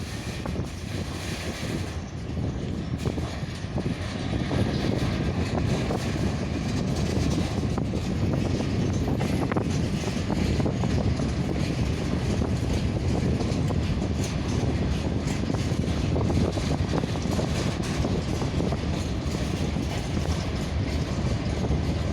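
Freight train rolling slowly past, its steel wheels rumbling steadily on the rails with a few faint clicks.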